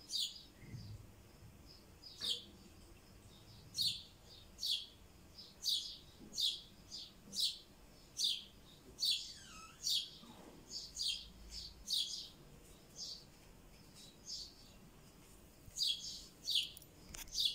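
Rosy-faced lovebird chirping: short, high-pitched calls repeated at uneven spacing, a little more than one a second.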